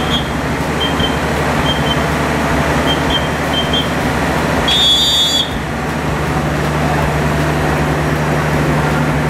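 D19E diesel locomotive running with a steady low engine drone while it eases up to couple onto a passenger coach, the drone growing stronger after about six seconds. Short faint squeaks are heard early on, and about five seconds in a brief loud high-pitched metallic squeal.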